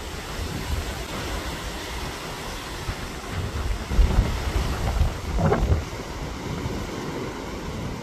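Rough sea surf breaking against the shore in a strong wind, with wind buffeting the microphone. The rumble swells loudest about halfway through.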